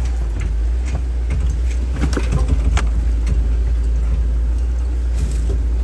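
A vehicle driving slowly over a rocky dirt road: a steady low rumble with scattered knocks and rattles as the tyres go over rocks, busiest about two to three seconds in.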